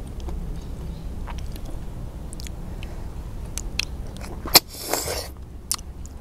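Chewing and small wet mouth clicks while eating boiled freshwater snails, then a sharp click about four and a half seconds in followed by a short slurp as a snail is sucked out of its shell.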